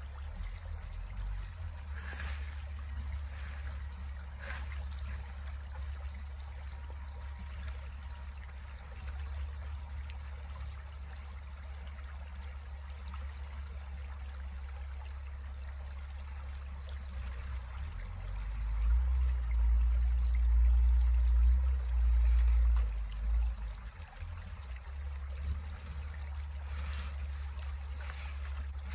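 Creek water trickling over rocks, as a steady wash of noise. Under it is a low rumble that grows louder for several seconds about two-thirds of the way through, with a few faint knocks.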